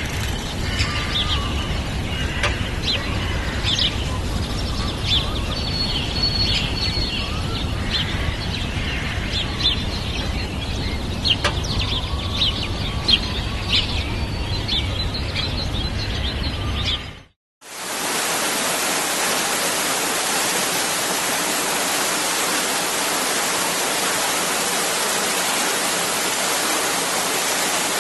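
Small birds chirping over a steady low outdoor rumble. About seventeen seconds in the sound cuts out briefly, and a steady rush of falling water takes over.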